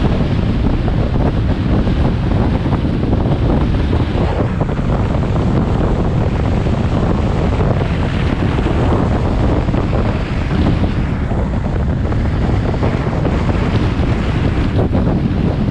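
Steady wind buffeting on the microphone of a moving Mercedes-Benz 190E, over a dense low rumble with scattered crackles from its tyres on loose dirt.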